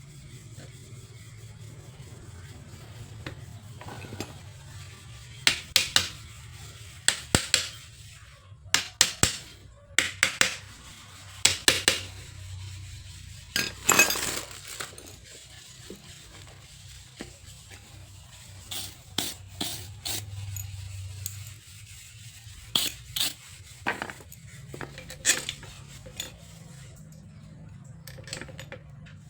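Metal parts of a car alternator clinking and knocking against each other and the workbench as it is reassembled by hand: a string of sharp clinks, often in twos and threes, with pauses between, over a steady low hum.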